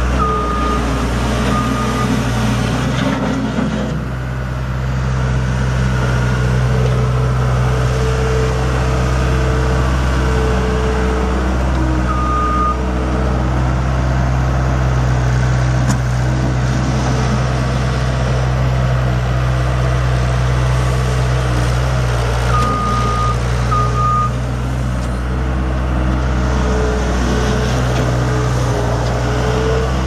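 Case 40XT skid steer's four-cylinder diesel engine running steadily, while its backup alarm gives a few short beeps near the start, once around the middle, and twice more later as the machine reverses.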